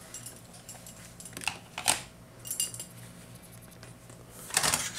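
A few faint, sharp clicks and taps of hard toy parts being handled on a tabletop, over a low steady hum.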